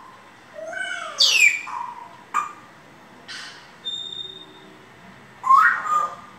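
African grey parrot calling in a string of short separate vocal sounds. Gliding, falling calls come about a second in, then a sharp click, a short steady whistle about four seconds in, and another call near the end.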